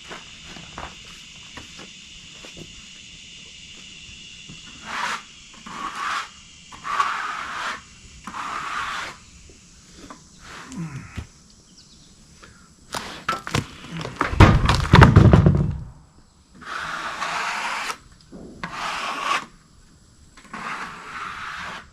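Rough-sawn pine boards being handled off a sawmill log: wood scraping and rubbing on wood in about seven short strokes, with one heavy wooden thud about two-thirds of the way through.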